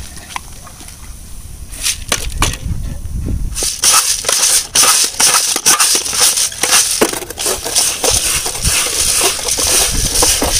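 Boondi batter frying in hot oil. A quieter stretch with scattered clicks gives way, about four seconds in, to a loud sizzle with many sharp taps of the perforated ladle as the batter is knocked through into the oil.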